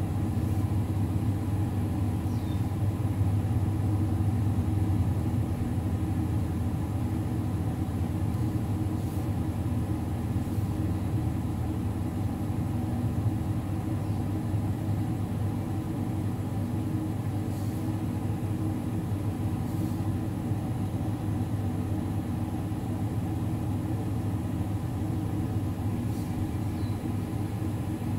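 A steady low mechanical hum that does not change, with a few faint ticks.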